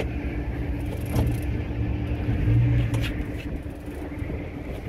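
A small boat's outboard motor idling with a steady low hum, under wind rumbling on the microphone that swells about halfway through, with a few light clicks.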